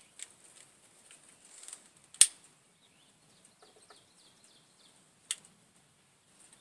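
Three sharp clicks, the loudest about two seconds in, from striking a light at a homebrew alcohol stove, with faint bird chirps behind.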